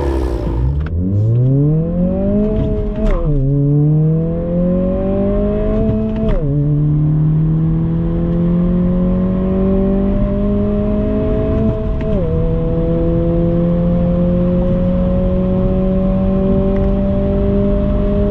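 Honda 1.5-litre turbocharged four-cylinder of an 11th-gen Civic Si / Integra running through an AWE cat-back exhaust, accelerating hard through the gears. The exhaust note climbs, drops at upshifts about 3, 6 and 12 seconds in, and climbs again after each, with a short crack at the first two shifts.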